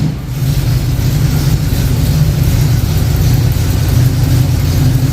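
Car engine running steadily and loudly at a fast idle, with a deep drone.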